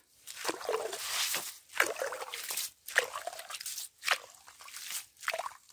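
Slushy water and ice chips sloshing and crunching in a freshly drilled ice-fishing hole as a plastic scoop is worked in it to clear it. The swishes, scrapes and drips come in irregular bursts.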